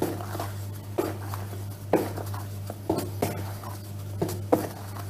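Spatula stirring thick cake batter in a mixing bowl as flour is worked into it. Soft scraping with irregular knocks against the bowl about once a second, over a steady low hum.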